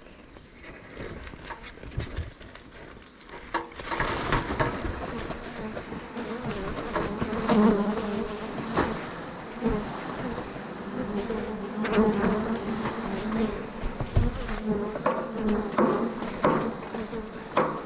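A large honeybee swarm buzzing loudly as the cluster is scooped and brushed loose into a metal tray. The buzz swells about four seconds in as the bees are disturbed, with a few sharp knocks in between.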